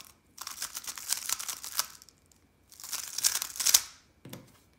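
A 3x3 speedcube being turned fast: two runs of rapid plastic clicking and rattling as the layers are twisted, with a brief flurry of turns near the end.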